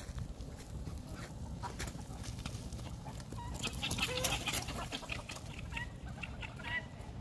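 Chickens clucking, with short calls scattered through and coming thicker from the middle on, over the rustle of steps in dry leaves.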